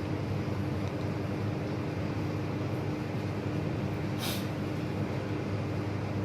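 Steady low background hum with a faint steady tone in it, and one short hissy rustle about four seconds in.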